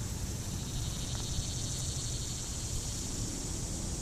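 Steady, fast-pulsing high trill of insects singing, such as crickets.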